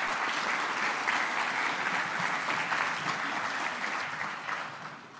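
Audience applauding a speaker's introduction, a steady round of clapping that dies away near the end.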